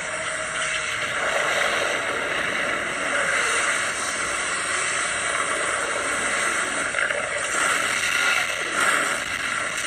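Steady rushing roar of a giant ocean wave surging over a ship, from a disaster film's soundtrack heard through a TV speaker.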